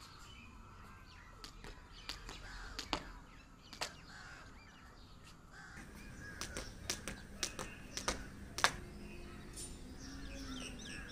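A jump rope slapping a rubber mat in a series of sharp clicks, with birds calling in the background.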